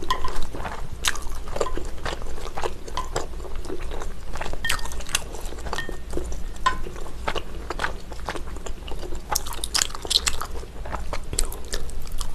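Close-miked chewing of chewy rice cakes and glass noodles in thick black-bean sauce: irregular wet mouth clicks and smacks.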